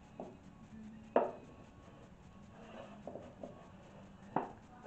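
Wooden tray turned from spalted maple being flipped and set down on a plywood board: a sharp knock about a second in, a few light taps, and another knock near the end.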